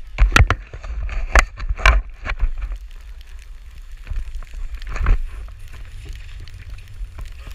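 Skis running over snow, with wind buffeting the microphone of a camera held out on a pole. A cluster of sharp knocks comes in the first two seconds, and another about five seconds in.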